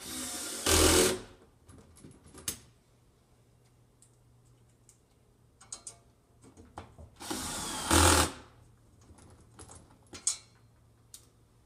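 Cordless drill/driver driving plate-mount screws into the cabinet in two short runs of about a second each, one at the start and one about seven seconds in, each getting louder partway through. Light clicks and knocks come between the runs.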